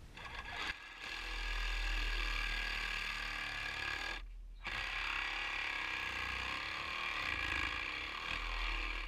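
PVC water pipe being cut by hand, a steady noisy cutting sound that stops briefly about four seconds in and then resumes.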